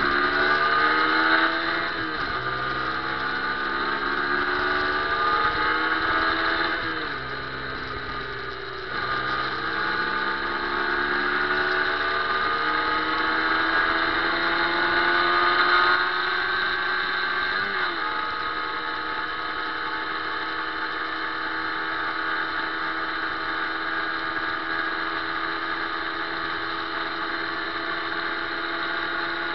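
Motorcycle engine heard from the rider's own bike, pulling up through the gears with its pitch rising and dropping back at each shift, easing off about seven seconds in, then accelerating again and settling to a steady cruise from about eighteen seconds on.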